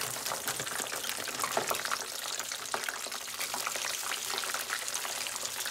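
Curly fries frying in hot oil in a pan, a steady crackling sizzle as handfuls are dropped in.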